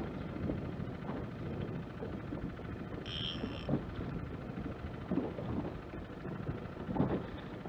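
Wind buffeting the microphone and water noise around an inflatable boat at sea, rough and uneven with short swells. A brief high tone sounds once about three seconds in.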